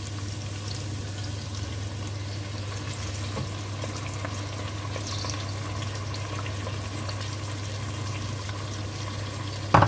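Diced meat sizzling steadily in a frying pan as tomato sauce is spooned in from a bowl with a wooden spoon, over a steady low hum, with a sharp knock near the end.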